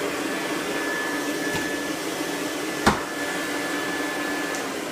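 Vacuum cleaner running steadily with a constant whine, and a single sharp knock about three seconds in.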